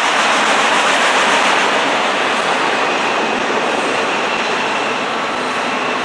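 Freight train autorack cars rolling past at steady speed: a continuous rush of steel wheels on rail, slightly louder in the first two seconds, with a faint thin wheel whine joining around the middle.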